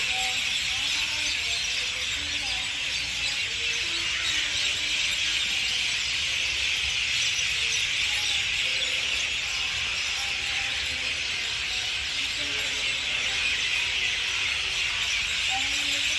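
Steady, high-pitched drone of an insect chorus, holding at an even level without a break.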